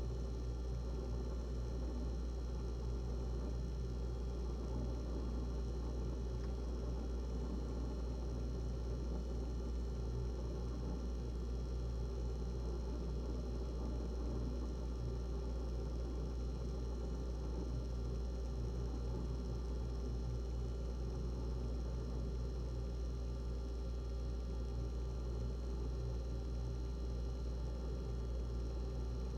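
GE refrigerator running: a steady low hum with several steady higher tones over it, unchanging throughout.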